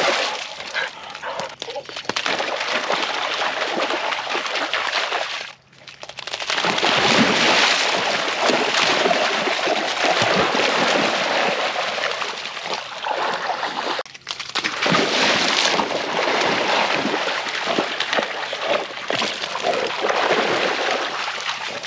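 Springer spaniels running and swimming through shallow water, a continuous splashing and sloshing. It drops out briefly about six seconds in and again around fourteen seconds.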